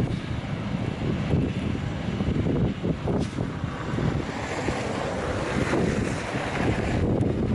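Wind gusting against the microphone in a snowstorm: an uneven, rumbling noise that rises and falls.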